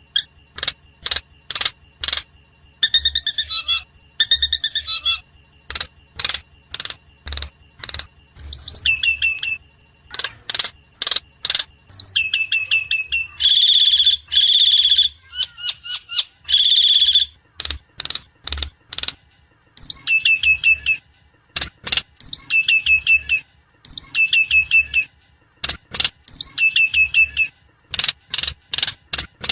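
Javan myna (jalak kebo) calling: runs of short, sharp notes about two a second, broken every few seconds by longer chattering, whistled phrases. It is a recording played to stimulate a sluggish caged myna into singing.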